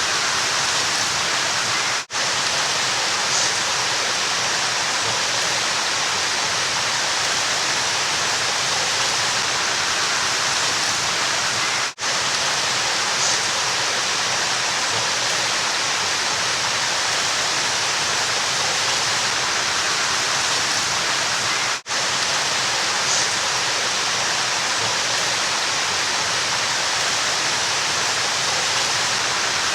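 River water rushing steadily, a dense even hiss. It cuts out for a split second about every ten seconds, where a short recording loops back on itself.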